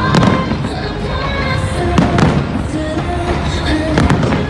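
Aerial fireworks bursting in a large display: several sharp bangs, roughly every two seconds, over a music soundtrack.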